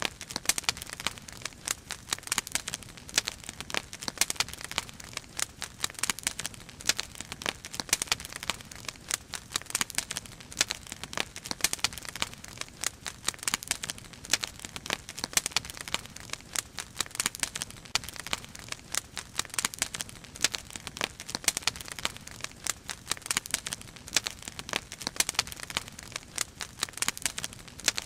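Wood fire crackling, with many sharp, irregular pops and snaps over a soft steady hiss of burning.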